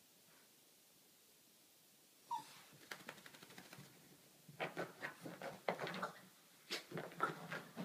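Small curly-coated dog rolling and crawling on carpet, silent at first, then a brief squeak about two seconds in, followed by a quick, irregular run of short grunting, breathing and scuffling noises from the dog's body on the carpet.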